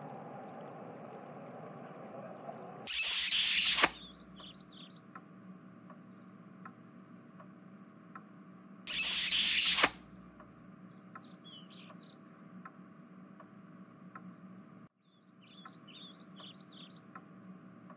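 Small bird chirps in short flurries over a soft steady hiss, broken twice by a loud rushing noise about a second long that swells and then cuts off, the two about six seconds apart.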